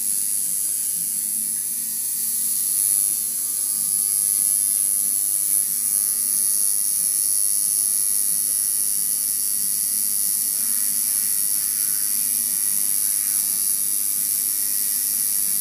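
Tattoo machine running with a steady electric buzz and a thin, high, even whine.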